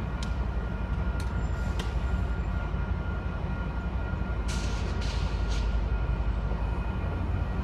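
Amtrak Pacific Surfliner bilevel passenger cars rolling past on the rails: a steady low rumble, with a few sharp clicks from the wheels in the first couple of seconds and brief hissing bursts about halfway through.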